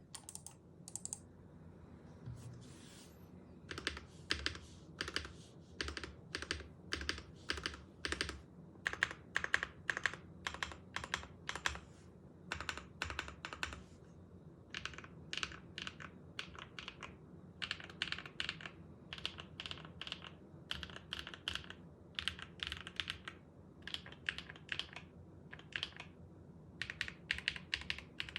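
Custom mechanical keyboard (MoonGeek M1 kit) with Gateron PureBerry switches, lubed with 205G0 and 105 and filmed, under CMK keycaps, being typed on in quick runs of keystrokes with short pauses between them.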